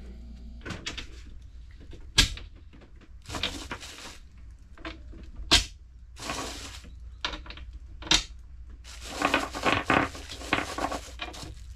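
Hands working with small metal parts: a few sharp metallic clicks and knocks, with rustling and scraping between them, loudest near the end.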